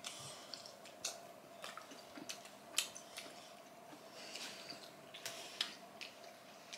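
Quiet eating sounds: wet chewing and mouth noises, with scattered light clicks of a metal fork against a plate. A faint steady hum sits underneath.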